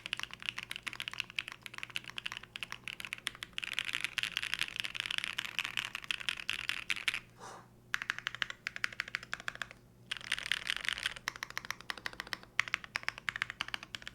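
Typing test on a Theseus 75 split mechanical keyboard mounted on 50A grommets: fast runs of keystrokes clacking in bursts, with brief pauses about halfway through and near the end.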